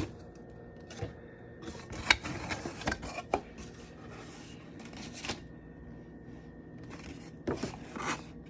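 Funko Pop box and its packaging being handled and opened: intermittent scraping and rubbing with a few sharp clicks, in bursts around two seconds in and again near the end.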